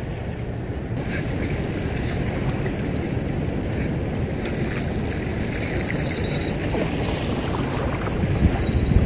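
Wind buffeting the microphone over a steady wash of shoreline water, growing a little louder near the end.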